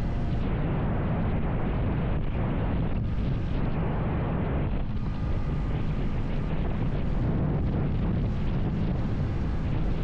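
Heavy wind rush and buffeting on the microphone of a Vitacci XMT 250 motorcycle riding steadily at about 50 mph, with the bike's engine and road noise running underneath.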